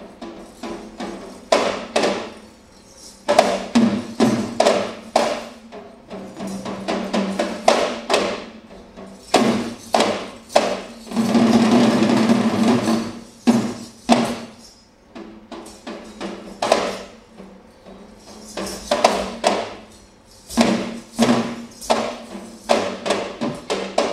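Sri Lankan low-country drumming for the Thelme dance, hand-played yak bera drums: quick sharp strokes in rhythmic phrases, swelling into a dense continuous roll about eleven seconds in, thinning out for a few seconds, then fast strokes again near the end.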